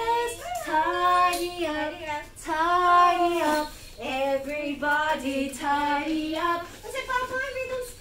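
A high voice singing a children's song unaccompanied, in long held notes that glide from one to the next.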